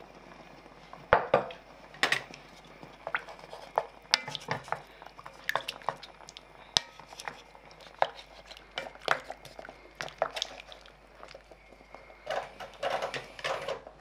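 A utensil knocking and scraping against a cast-iron pot as pork ribs in braising liquid are moved about, in irregular clicks and knocks. The loudest knock comes about a second in, and a busier run of knocks comes near the end.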